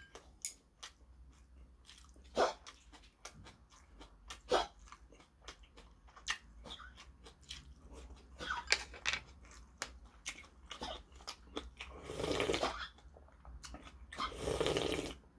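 Eating sounds from a bowl of spaghetti in chueotang (loach soup): chewing with many small, wet mouth clicks, then two longer slurps near the end as the broth is drunk straight from the bowl.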